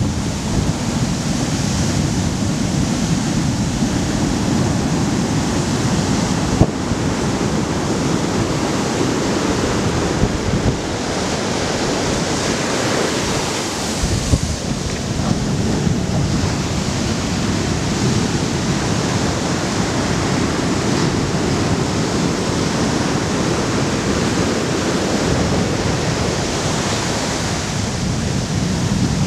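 Ocean surf: big waves breaking and foam washing up the beach, a continuous rush of water.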